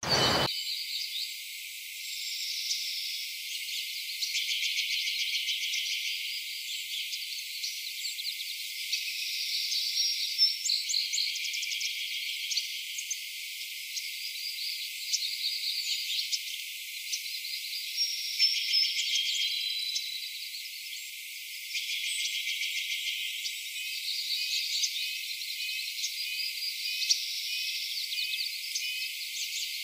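Small birds chirping and trilling, a continuous mix of varied short calls and rapid trills, with a run of evenly spaced short notes near the end. The sound is thin, with no low or middle pitches at all.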